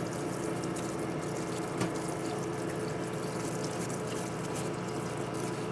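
Parts washer pump running and its stream of fluid splashing over an aluminium oil filter housing, a steady wash of noise over a low hum, with one small knock about two seconds in.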